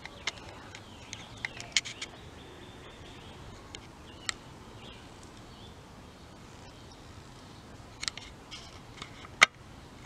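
Quiet woodland background with scattered short, sharp ticks and chirps: a cluster in the first two seconds, a few more later, and the loudest single tick just before the end.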